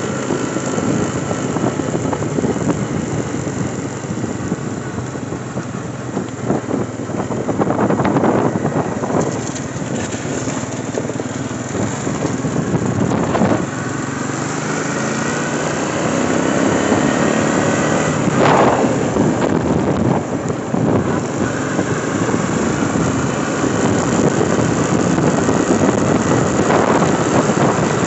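Small vehicle engine running as it drives slowly along, its pitch rising and falling with speed, with wind buffeting the microphone in several gusts.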